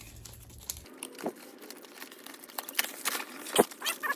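Packaging being handled and opened: scattered crinkling and rustling clicks that grow busier in the second half, with a couple of sharper knocks.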